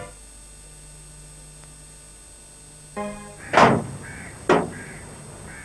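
Two sharp thuds about a second apart, the first the louder, each with a short ringing tail, preceded by a brief pitched tone after a stretch of low hum.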